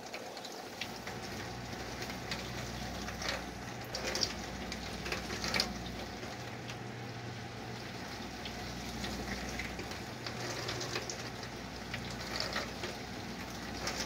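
Dishwasher running its wash cycle: the circulation pump hums steadily while the spray arms splash water around the tub and against the door. The wash water is heavy with suds from excess dish soap, which the vegetable oil added to the wash is beginning to break down.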